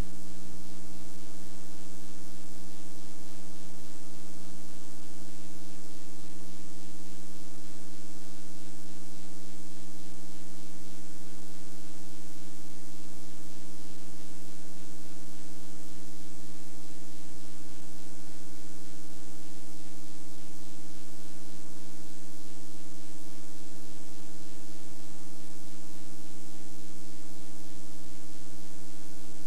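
A steady electrical buzzing hum with hiss stands in for the programme sound. It never changes, and it is the sign of an audio fault on the tape recording.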